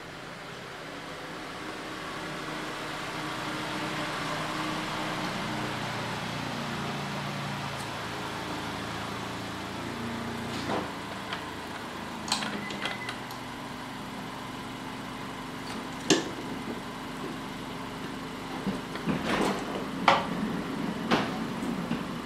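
Metal clinks and knocks as the cylinder of a Yamaha TDR250's two-stroke 1KT twin is worked up and off its piston. A handful of sharp knocks come from about halfway in, more of them near the end, over a steady low background hum.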